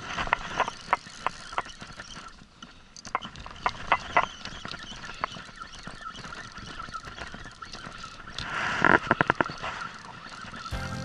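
Spinning reel on a jigging rod being wound while fighting a hooked yellowtail-type fish, with irregular clicks and knocks from the reel and rod. A little before nine seconds in comes a quick run of about six clicks.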